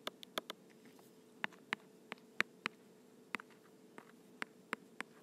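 Quiet, irregular clicks of a stylus tapping on a tablet's glass screen while writing by hand, about fifteen in a few clusters.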